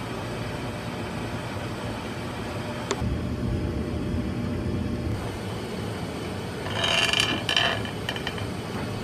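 Steady background hiss with a single sharp click about three seconds in, then two short pitched squeaks near the end.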